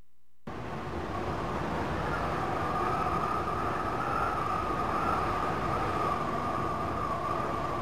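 Steady outdoor city ambience: a constant rushing noise with one sustained, slightly wavering high tone above it. It starts suddenly about half a second in.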